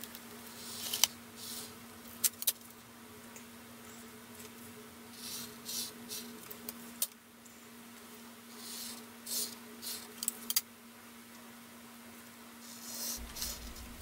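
Short scratchy bursts of rubbing and handling on drawing paper, with a few sharp clicks, over a steady low hum.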